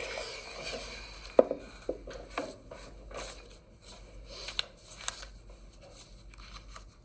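Scattered light clicks and scrapes over a faint hiss, the sharpest click about one and a half seconds in.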